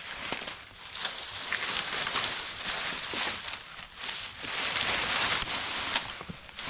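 Rustling and crackling of branches and dry leaves being handled or trampled, in uneven swells with small snapping clicks.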